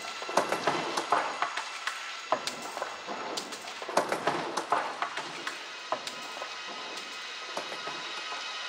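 Soundscape made from sampled London field recordings, looped and processed: irregular clicks and clattering over a hiss with faint held tones. The clicking thins out about six seconds in, leaving a steady hiss and tones.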